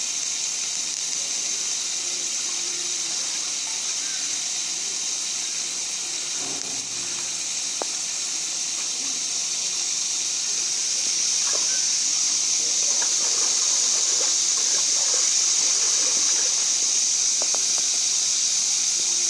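A steady, high-pitched hiss that grows louder about eleven seconds in, with a few faint ticks and small splashes on top.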